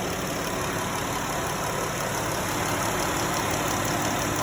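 2013 Dodge Grand Caravan's 3.6-litre V6 idling steadily after a thermostat and housing replacement, with no belt squeal.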